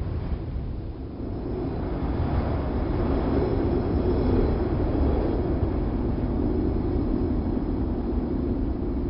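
Wind sound effect: a steady rushing of wind that dips about a second in and swells again.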